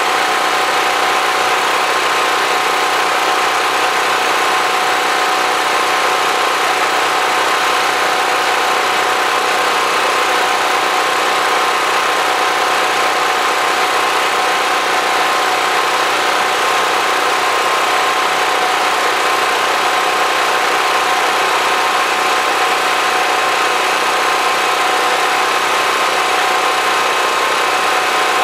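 Generator engine running steadily, a loud, unchanging drone with a few held tones through it.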